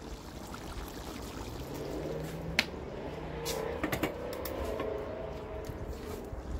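Pot of chicken curry simmering on the stove, a faint bubbling as the water cooks down, with a few light clicks between about two and a half and four seconds in.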